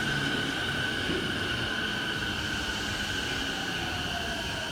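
Train running through a station: a steady rumble with a constant high whine.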